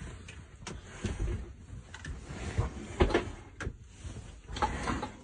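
Scattered knocks, clicks and rustling as people move about and handle things in a small van interior, with handling noise from a phone being carried over bedding.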